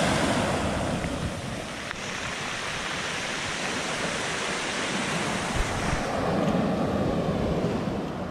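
Sea waves washing onto a pebble beach, a steady rushing wash that swells and eases, with wind buffeting the microphone.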